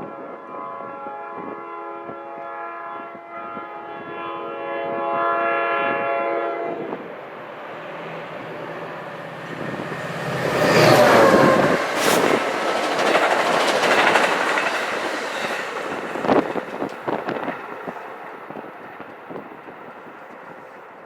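New Jersey Transit train sounding its multi-note horn in one long blast of about seven seconds. The train then passes close by, loudest a little past the middle, with wheels clattering over the rails and a falling sweep as it goes by. The rumble fades away toward the end.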